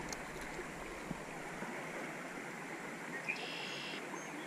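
Steady rush of a small trout stream's flowing water, with a short high buzzing sound about three seconds in.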